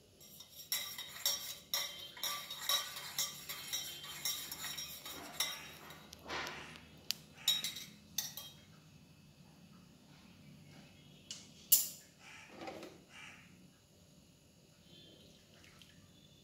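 Metal spoon stirring in a stainless steel tumbler, clinking against its sides in quick repeated strikes for about the first eight seconds. A single sharp clink follows a few seconds later.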